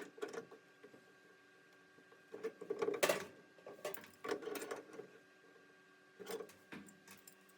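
Channel-lock pliers clicking and scraping on brass hose fittings in four short bouts, about a second or less each, as the connections are snugged up.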